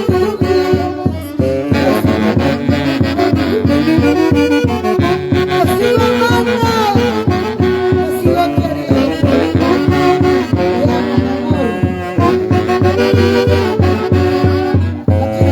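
Live orquesta from Huancayo playing Andean dance music, with horns carrying the melody over a steady, even beat.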